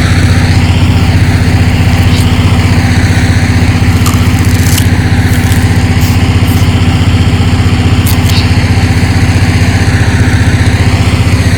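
Generator engine running steadily and loudly, with a few short clicks and scrapes over it.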